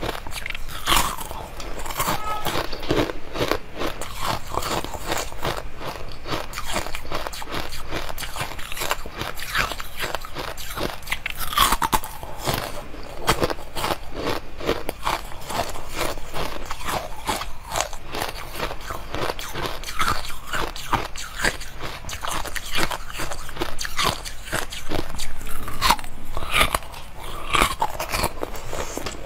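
Biting and chewing hard frozen bars from a silicone tray: a dense, continuous run of sharp crackling crunches as the frozen pieces break between the teeth.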